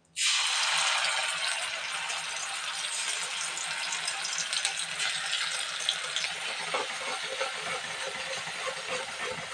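Onion, ginger, garlic and tomato paste sizzling as it goes into hot oil with whole spices in a kadai. The sizzle starts suddenly, is loudest at first and slowly dies down, with a spatula stirring the paste near the end.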